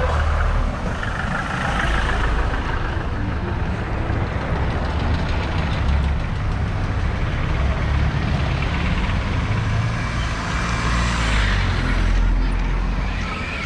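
Busy street traffic close by: motor vehicles running and passing, a steady low engine rumble under road noise.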